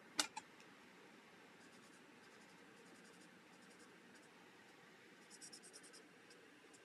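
Faint scratch of an alcohol marker's tip on cardstock while coloring, with a quick run of short strokes about five seconds in. Two sharp plastic clicks right at the start as markers are handled.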